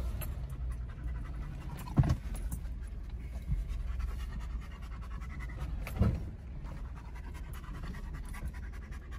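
Off-road vehicle's engine and drivetrain rumbling at crawling speed, heard from inside the cab, with two heavy thumps, about two seconds and six seconds in, as the vehicle jolts over rocks.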